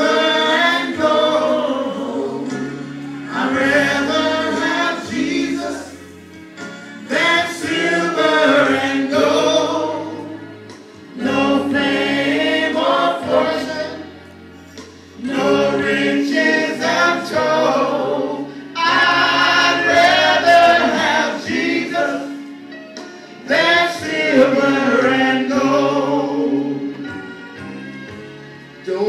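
A small mixed gospel vocal group of men and a woman singing together into microphones, in phrases of about three seconds with short breaks between them.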